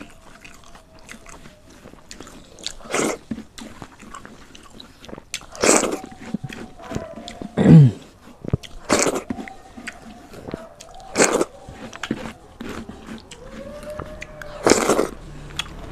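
Close-miked eating sounds of a person eating rice and dal by hand: wet chewing and mouth smacks in about six louder bursts, with quieter squishing and clicking between as the rice is mixed on a banana leaf.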